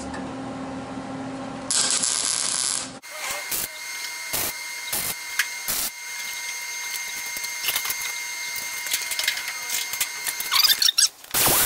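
MIG welder tack-welding a sheet-steel patch panel into a truck cab roof: a string of short bursts, each tack a fraction of a second, with uneven pauses between them. A longer steady hiss comes about two seconds in, and another starts right at the end.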